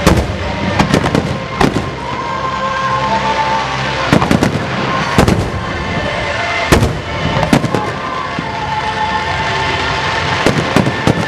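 Aerial fireworks shells bursting overhead: a string of loud, sharp bangs at irregular intervals, some in quick clusters, over a continuous crackle and rumble of the show.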